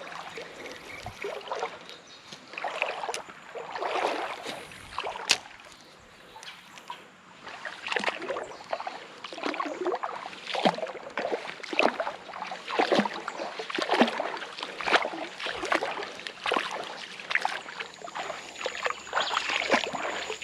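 Legs wading through shallow creek water, a rough run of sloshing swishes, about one or two a second, that grows louder and more regular partway through.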